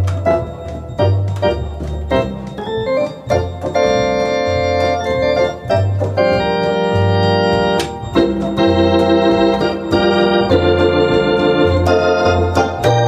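1977 Wersi Helios electronic organ being played: held chords over a bass line that moves note by note, with the organ's built-in drum box keeping a steady beat.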